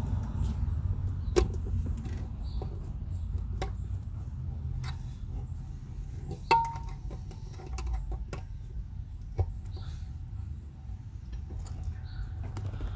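Irregular small metallic clicks and taps of a screwdriver and hands working the terminal screws on a car amplifier while its power and ground wires are fastened, over a low steady rumble.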